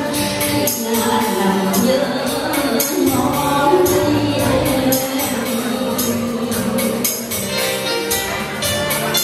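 Woman singing live into a handheld microphone over amplified backing music, with a steady percussion beat of tambourine-like hits about three times a second.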